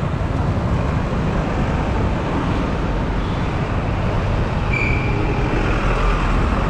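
Dense road traffic passing close by: a steady rumble of buses, cars and motorcycles, with a short high-pitched tone about five seconds in.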